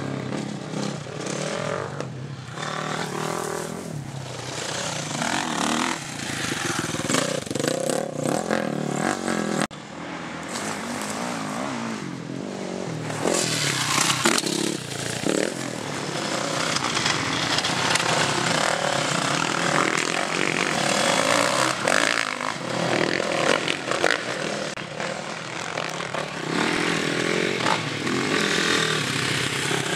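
Four-stroke 450 motocross bikes, a Husqvarna TC 450 and a TM Racing 450 MX-F, ridden hard around a dirt track. The engine note keeps rising and falling with the throttle as they climb, jump and land.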